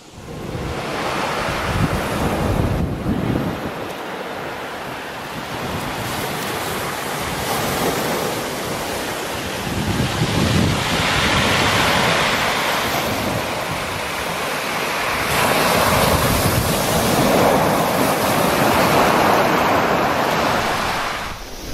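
Surf breaking and washing up a shingle beach, swelling and easing every few seconds, with wind noise on the microphone.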